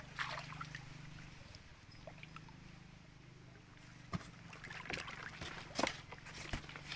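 Muddy canal water sloshing and splashing around a man wading chest-deep and feeling underwater with his hands, in scattered short splashes that grow busier in the second half. A steady low drone runs underneath.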